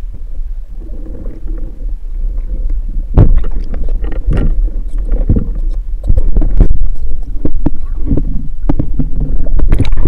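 Muffled underwater sound picked up by a camera in its waterproof housing: a steady low rumble of water with scattered knocks and clicks, which come more often and louder from about three seconds in.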